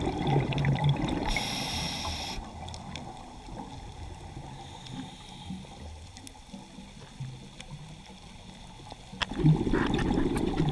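Scuba diver's regulator breathing underwater, heard through the camera housing: a rush of exhaled bubbles, a brief hiss of inhalation about a second in, a quieter stretch, then exhaled bubbles again near the end.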